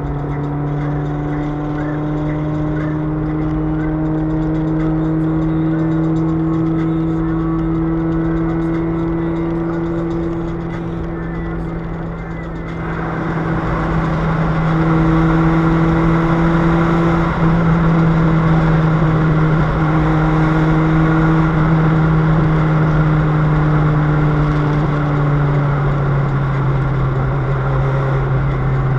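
Toyota Vios engine running through a broken exhaust pipe while driving, a loud drone that sounds like a rally car. It grows louder about halfway through as the car pulls harder.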